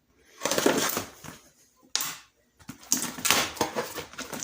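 A cardboard box being opened by hand, with irregular bursts of scraping and rustling from the cardboard and packing and a sharp snap about two seconds in.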